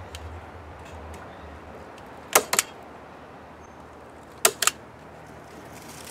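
Hand staple gun firing staples through half-inch wire hardware cloth into a 2x10 board: two sharp double snaps about two seconds apart.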